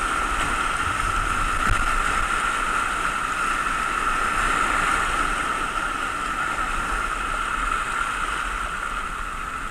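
Whitewater rapids rushing steadily around a kayak running down a rocky mountain river.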